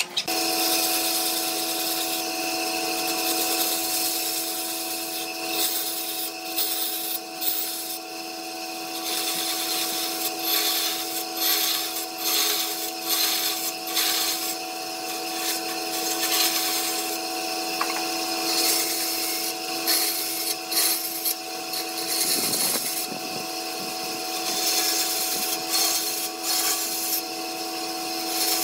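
Bandsaw running with a steady hum while its blade cuts through a thick wooden chair part. The cutting noise rises and falls as the piece is fed and turned.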